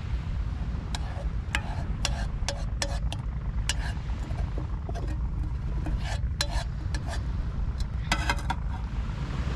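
A metal utensil stirring and scraping inside a small metal camping pot, a scattered run of quick clinks and scrapes with a denser rattle near the end, over a steady low rumble of wind on the microphone.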